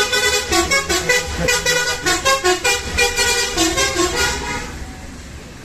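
A loud melody of short pitched notes in a quick, even rhythm, fading away about four and a half seconds in.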